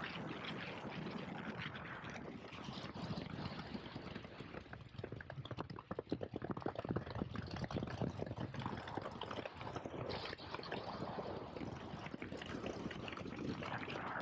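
A moving KTM 1290 Super Adventure S, wind rushing over the microphone with its V-twin engine running beneath. From about four seconds in, the rush turns gusty, with many uneven thumps.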